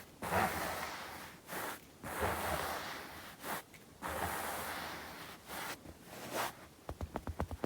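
Bare palms rubbing together in a series of long dry swishes, each about a second long. Near the end they give way to a fast, even run of fingertip taps, about ten a second.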